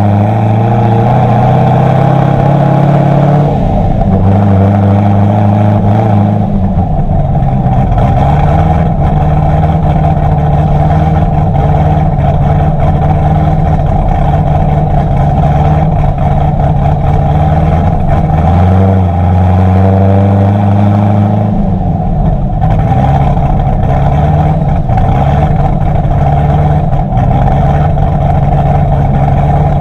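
Chevrolet C6 Corvette V8 exhaust through a Billy Boat PRT axle-back, heard close at the quad tips while driving. The revs climb and drop back twice, near the start and again about two-thirds through, with steady cruising in between.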